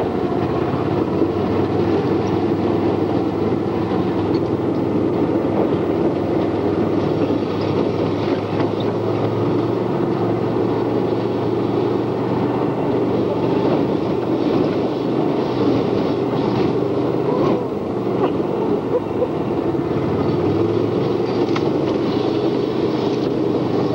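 ATV engine running steadily while the ATV is under way, a constant low drone.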